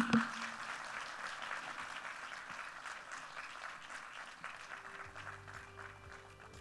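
Audience applauding at the end of a speech, a dense patter of clapping that slowly thins and fades. Background music with steady sustained notes comes in about five seconds in.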